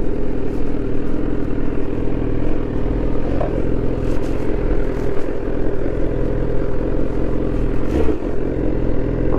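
BMW S1000R's inline-four engine idling steadily, with two slight blips of the throttle.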